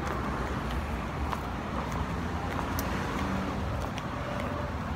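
Steady low rumble of road traffic on a street, with a few faint clicks from sandals stepping on the concrete pavement.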